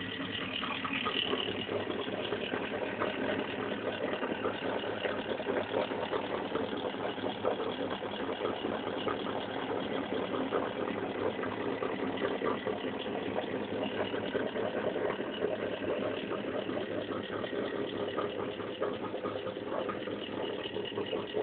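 Home-built magnet motor-generator running steadily: a continuous, rapid rattling buzz with a faint steady hum under it.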